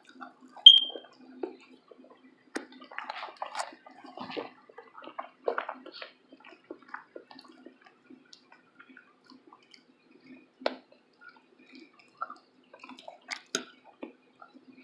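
Close-up chewing and wet mouth smacking from someone eating pancakes, a string of small scattered clicks and squelches. A short, bright clink rings out once about a second in.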